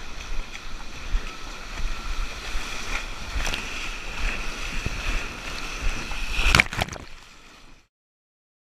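Shallow sea surf washing and sloshing around a wader, heard through a GoPro's microphone with wind noise, and a few sharp knocks or splashes, the loudest about six and a half seconds in. The sound cuts off abruptly near the end.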